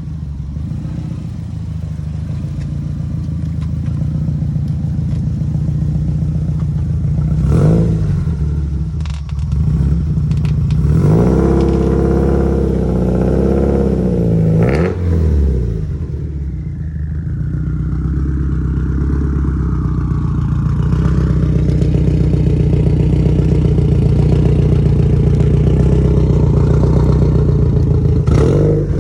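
2020 Subaru WRX STI's turbocharged flat-four engine running, revved up and back down a few times about eleven to fifteen seconds in, with a couple of short knocks.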